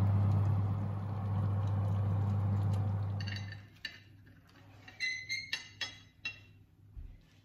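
Steady low hum of a fan oven running, which stops about three and a half seconds in. Then comes a quick run of light clinks as a metal ring mould knocks against a china plate while salad leaves are pressed into it.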